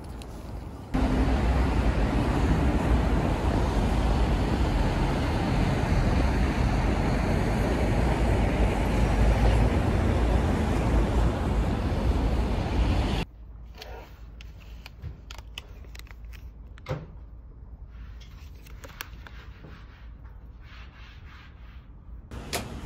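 Loud, steady city street noise, a rumbling hiss, for about twelve seconds. It cuts off abruptly to a much quieter background with scattered light clicks and taps.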